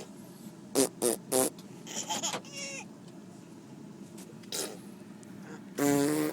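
A baby blowing wet, spitting raspberries that sound like farts: three quick bursts about a second in, a few squeaky pitched ones after, and a longer, louder buzzing raspberry near the end.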